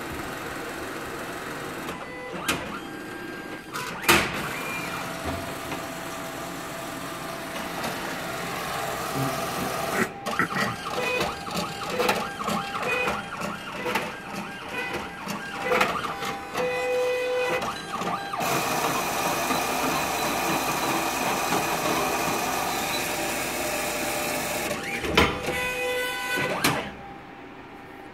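Diebold ATM's internal mechanisms running through start-up: a few sharp clicks, then a run of quick clacks, then a steady whir that cuts off suddenly near the end.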